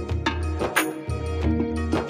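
Background music with a steady beat and heavy bass, in an Indian film-music style.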